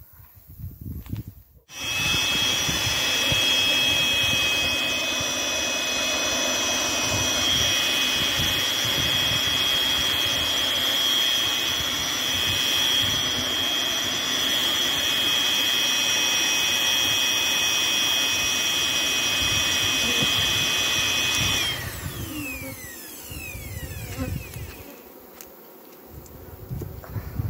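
A small motor runs steadily with a high whine, starting abruptly about two seconds in; about three-quarters of the way through it cuts off and its pitch falls away as it winds down. Honeybees buzz around the open hive after it stops.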